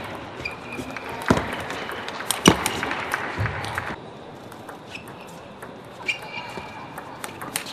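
Table tennis ball being struck and bouncing: a few sharp clicks, the loudest about two and a half seconds in, with short high squeaks and a background hall noise that quietens about four seconds in.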